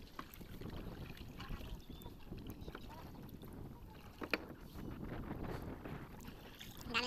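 Water lapping and splashing against a small wooden canoe's hull as a line is hauled up out of the water by hand, with scattered small knocks and one sharper knock about four seconds in.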